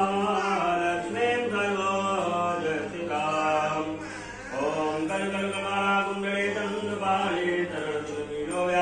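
A man chanting Hindu mantras into a microphone in a continuous sing-song recitation, with held and gliding notes.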